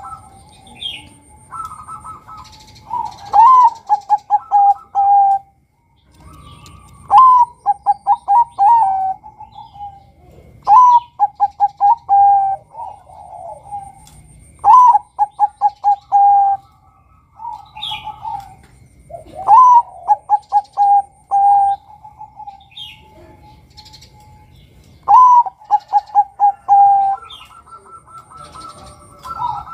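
Male zebra dove (perkutut, Bangkok type) singing its cooing song. Phrases come about every four seconds, each a rising opening note followed by a quick run of short staccato coos.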